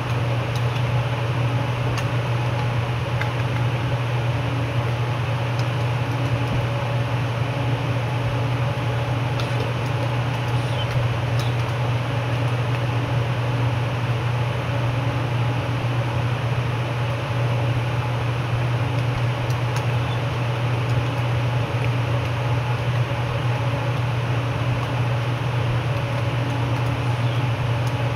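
Steady mechanical hum and hiss, like a fan running, with a strong low hum and a few faint clicks.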